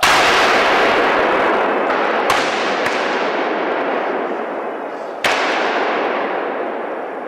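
Two loud rifle shots about five seconds apart, each followed by a long rolling echo that fades slowly, with two fainter sharp cracks, likely distant shots, in between.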